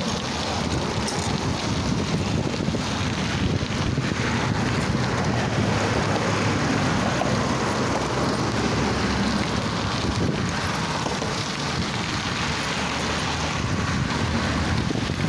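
Steady rush of wind buffeting the microphone on a moving bicycle, mixed with the rumble of its tyres on a dirt path.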